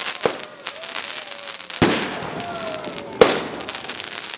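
Aerial fireworks going off: three sharp bangs about a second and a half apart, the last the loudest, with crackling in between and a faint whistle.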